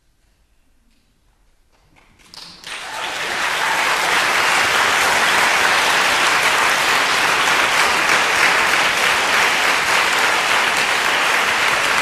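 Near silence for about two seconds, then a hall audience breaks into applause, swelling within a second or two to steady, sustained clapping at the end of a performance.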